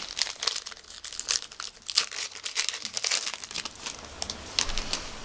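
Foil trading-card pack wrapper crinkling and being torn open: a dense run of crackles that thins out after about three and a half seconds.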